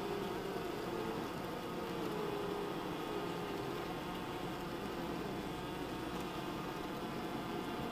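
Honey bees humming inside the hive, a steady colony drone with a faint wavering tone, heard from among the frames close to the bees.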